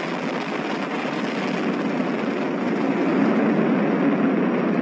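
Falcon 9 first stage's nine Merlin 1D engines firing at full thrust during ascent: a steady, dense rocket noise that grows a little louder about three seconds in. Stage 1 propulsion is nominal.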